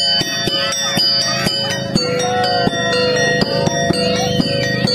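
Percussion music of regular drum beats under ringing, bell-like metal tones, with a wavering melody line over them, typical of the drum-and-gong accompaniment to an Indonesian topeng monyet street show.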